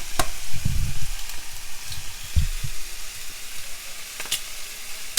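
Egg frying in a pan, sizzling steadily, with a couple of low bumps about a second and two and a half seconds in.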